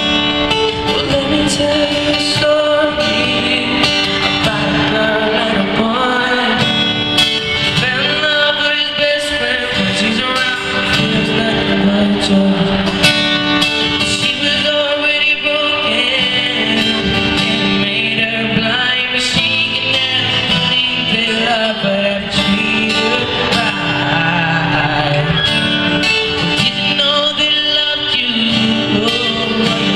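Live amplified performance: a male voice singing over strummed acoustic guitars.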